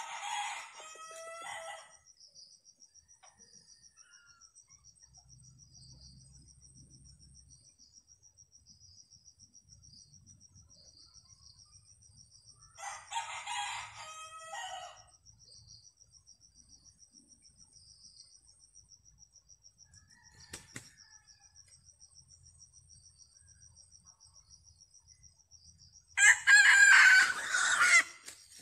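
Red junglefowl roosters crowing three times, near the start, about halfway through and once more near the end, the last crow much the loudest and closest. A steady high insect trill runs underneath throughout.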